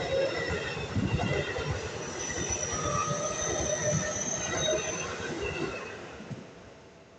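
Seibu 30000 series electric train running past, its wheels rumbling on the rails with thin high tones above, the sound dying away over the last two seconds as the train moves off.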